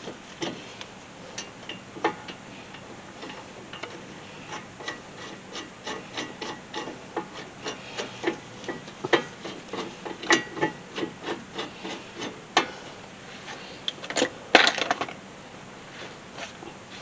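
Hand tools clicking and tapping on metal, a few irregular clicks a second, while a front brake caliper bracket is being fitted. A louder cluster of knocks comes about fourteen seconds in.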